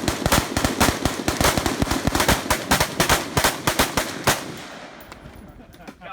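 Rapid, irregular gunfire from AR-15 rifles, about five shots a second with shots overlapping, that stops about four seconds in, leaving the reports to die away.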